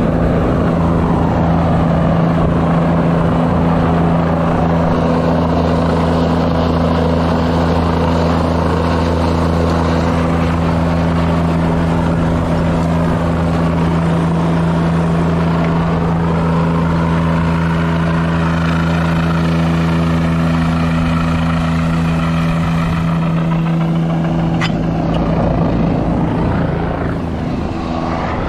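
Helicopter hovering overhead, heard from a line hanging beneath it: a steady low drone of rotor and engine with a rushing noise over it. A single sharp click comes about three-quarters through.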